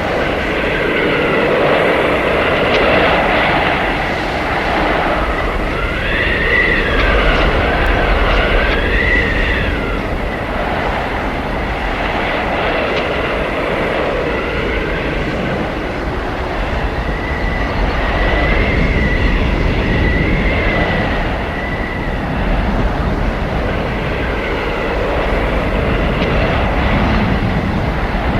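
Howling arctic blizzard wind: a continuous rush of wind swelling and easing every few seconds, with high whistling tones that rise and fall.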